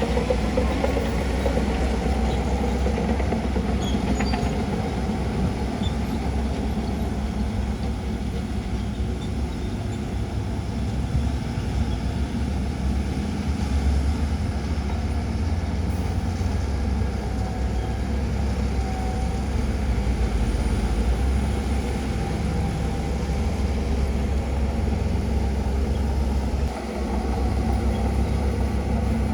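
Heavy diesel earthmoving machinery running steadily, a deep engine drone with a brief drop in level near the end.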